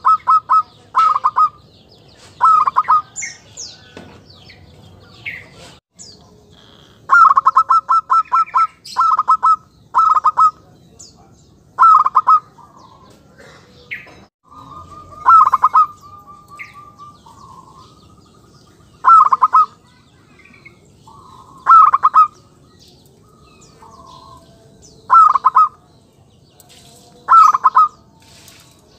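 Zebra dove (perkutut) calling: a dozen or so short calls, each a quick string of clear, rapid cooing notes, repeated every one to four seconds. This is a decoy bird's call of the kind used to lure wild zebra doves. Faint high chirps from other small birds sound between the calls.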